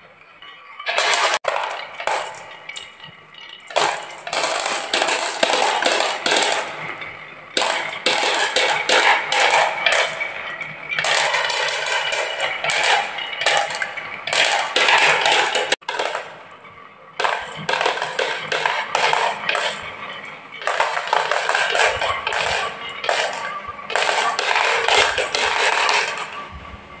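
Marbles rolling and clattering down a HABA wooden marble run: dense rattling in long bursts with a few short lulls between them.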